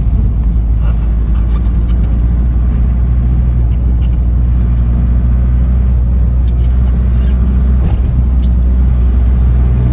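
Steady low rumble of engine and road noise inside a car's cabin while driving along a highway.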